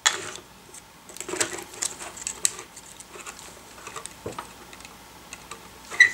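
Thin plastic overlay film and a glass touch-screen panel being handled: irregular light crinkling and clicking. There is a sharp click at the start and a sharper tick with a brief ring near the end.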